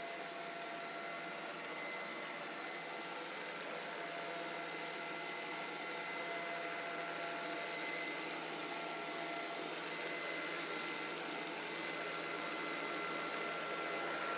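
iCLEBO Omega robot vacuum cleaner running steadily: an even mechanical hum with a constant high whine, getting slightly louder about halfway.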